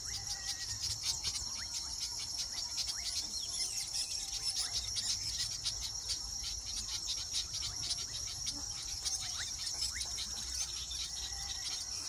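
A steady high-pitched insect drone runs throughout. Many quick, sharp chirps and chattering notes from weaver birds at their nesting colony sound over it.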